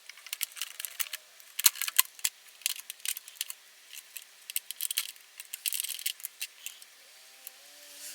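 Irregular quick clicks, taps and scrapes of small metal tools working on a TV's circuit board as a capacitor is being removed.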